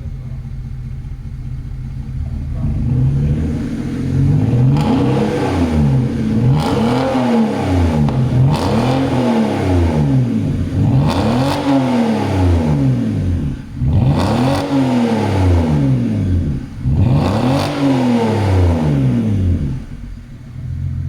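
BMW 330i straight-six running through a straight-piped exhaust with the rear silencer removed. It idles, then is revved about six times, each rev rising and falling over a couple of seconds, and drops back to idle near the end.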